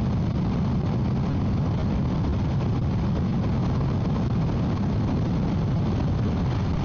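Motorcycle cruising at a steady speed: engine running with wind rushing over the microphone, an even low rumble with no changes.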